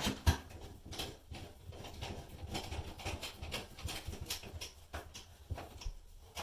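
Two sharp knocks, then irregular clicking and scraping as a screwdriver turns the screw of a molly bolt (hollow-wall anchor) set in drywall.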